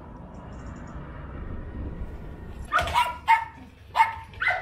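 Puppies yapping at a kennel gate: a run of short, high-pitched barks, about five of them, starting a little under three seconds in.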